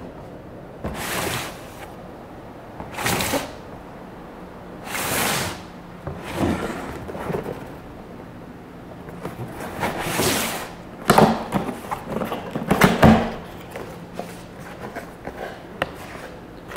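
Cardboard box handled on a wooden table: several brief scraping swishes as it is slid and turned, then a flurry of sharp cardboard cracks and knocks as its top flaps are pulled open, followed by lighter ticks.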